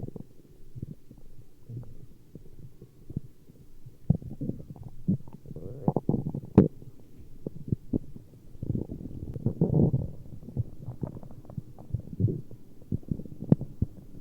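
Human stomach growling: irregular low gurgling and bubbling rumbles with many quick pops, swelling louder a little before halfway and again about two-thirds through.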